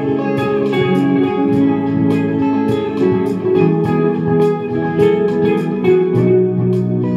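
Electric guitar played melodically, sustained single notes and chord shapes moving from one to the next, over a steady percussive beat.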